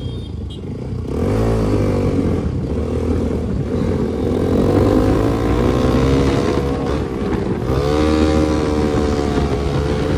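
Bajaj Pulsar RS200's single-cylinder engine breathing through an aftermarket Akrapovic exhaust, ridden under hard acceleration. The revs climb sharply about a second in, hold with small wavers, drop briefly and climb again near the end.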